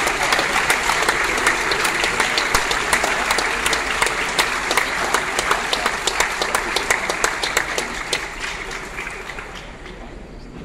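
Audience applauding, many hands clapping together; the applause thins out and dies away over the last few seconds.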